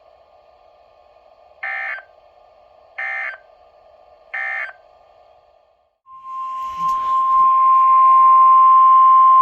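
NOAA Weather Radio receiver audio: three short bursts of SAME digital data, the end-of-message code, over faint receiver hiss. About six seconds in, the steady 1050 Hz warning alarm tone starts with a brief crackle and holds loud, announcing the next warning.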